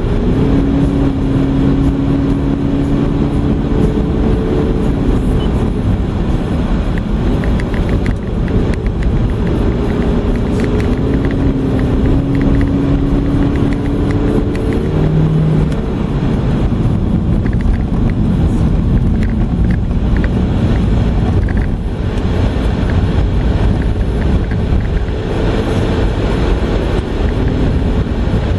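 Driving noise heard inside a moving car's cabin: steady tyre and road rumble with the engine running. A faint engine hum shifts in pitch now and then.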